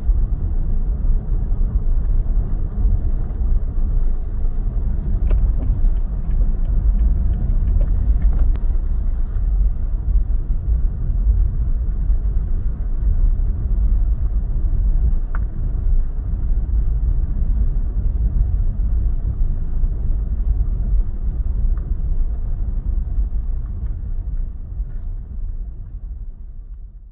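Low, steady rumble of a car being driven, engine and road noise with no distinct events, fading away over the last couple of seconds.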